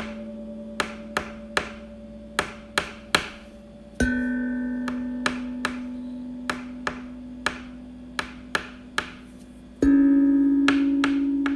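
Slow instrumental music: a low note is struck every six seconds or so and rings out, fading, each time a little higher in pitch. Between the notes come sharp clicks in groups of three.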